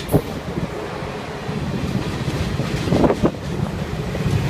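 Caltrain bilevel passenger cars rolling slowly along the platform: a steady low rumble that grows louder toward the end, with a few short sharp sounds near the start and about three seconds in.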